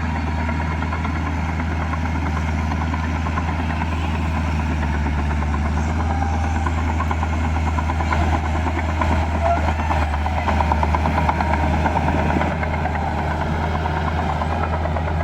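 Heavy diesel engine running steadily with a low drone, growing louder and rougher for a few seconds from about eight seconds in.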